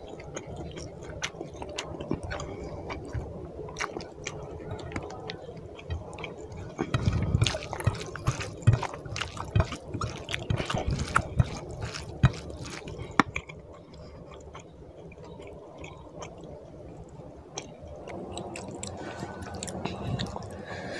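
Wet squishing and squelching of a bare hand mashing and mixing rice with fish curry gravy on a plate, a steady run of small sticky clicks, mixed with close chewing. The busiest, loudest stretch falls in the middle.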